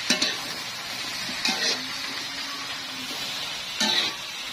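Chopped taro stems sizzling steadily in a metal wok, with a metal spatula scraping against the pan three times as they are stirred.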